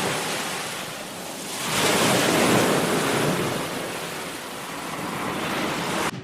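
Steady rushing of wind and sea water, heard from the deck of a moving cruise ship, with wind buffeting the microphone. It swells about two seconds in and cuts off suddenly near the end.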